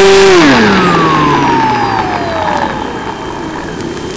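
Mini Skywalker RC plane's electric motor and propeller, heard from the onboard camera: a loud steady whine that drops sharply in pitch about half a second in as the throttle is cut. A fainter, higher whine falls slowly over the next couple of seconds as the propeller winds down, leaving a steady rush of wind.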